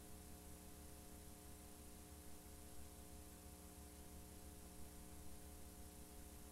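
Near silence: a steady low hum with faint hiss from a VCR playing a blank stretch of videotape.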